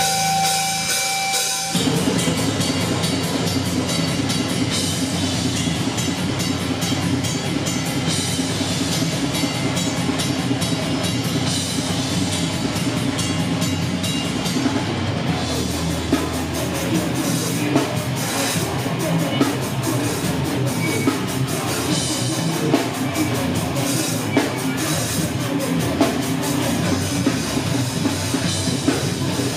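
Live rock band playing loud, with a full drum kit driving it. A steady high tone holds for the first couple of seconds, then the whole band comes in together.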